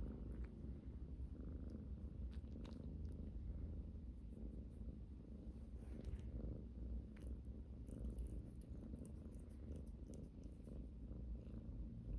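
Domestic cat purring close up: a steady, continuous low rumble, with a few faint clicks over it.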